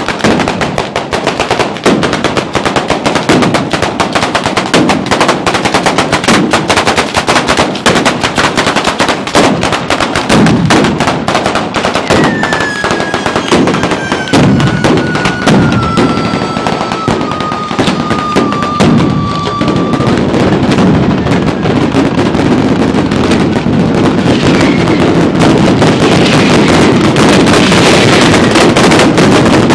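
Ground firework battery of firecrackers strung along wires, going off in a rapid, unbroken chain of bangs like machine-gun fire. About twelve seconds in, a whistle glides slowly down in pitch for some eight seconds, and near the end the bangs merge into a denser, louder crackle.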